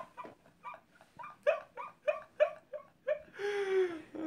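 A man laughing hard in a rapid run of short, high-pitched bursts, about three a second, that turn into one long drawn-out squeal near the end.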